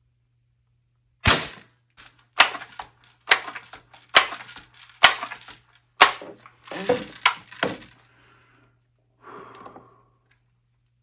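A series of sharp mechanical clacks, about one a second, then a quick cluster of them: an air rifle being worked by hand between shots, as in pumping, cocking or loading.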